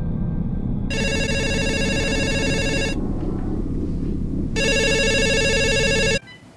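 Cordless telephone ringing twice with an electronic trilling ring, each ring about two seconds long with a pause between. The second ring and a low steady drone under it cut off abruptly near the end.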